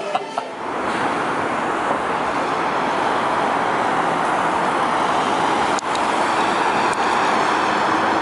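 Steady road traffic noise from cars driving along a busy multi-lane city street.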